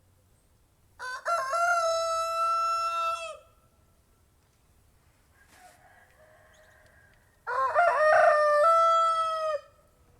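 Rooster crowing twice, a few seconds apart; each crow is a long cock-a-doodle-doo of about two seconds, held on one pitch and dropping at the end.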